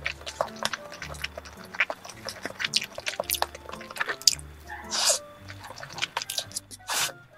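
Close-up eating sounds: metal chopsticks clicking in a paper noodle cup, and sauce-coated cup spaghetti noodles being slurped and chewed, with two longer slurps about five and seven seconds in. Background music with a steady bass line plays underneath.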